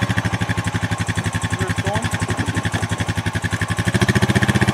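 ATV engine running with a fast, even beat, growing louder about four seconds in.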